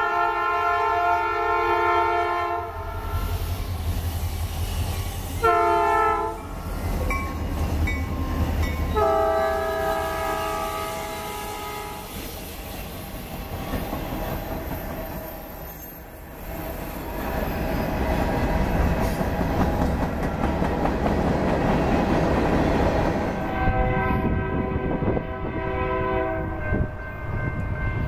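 Freight train's lead locomotive, a THB SD40-2 diesel, sounds its horn as it approaches: a long blast, a short one and another long one. Then the diesel locomotives and boxcars pass with a steady rumble and the clatter of wheels over the rail joints. Near the end another train's horn sounds for a few seconds as it approaches.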